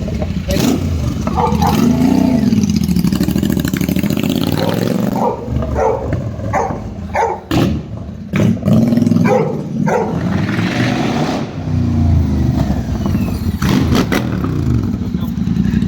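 Royal Enfield Super Meteor 650's 648 cc parallel-twin engine running with both exhaust silencers removed, revved up and down in repeated blips, with sharp cracks from the open exhaust between the revs.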